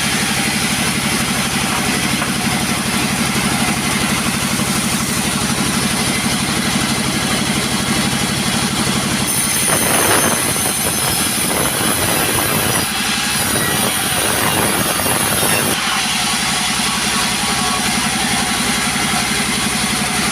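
Chainsaw engine running steadily, with a louder, harsher stretch lasting several seconds from about halfway through.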